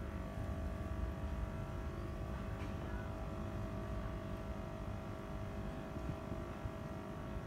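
Yamaha 40 hp outboard motor running steadily at an even speed.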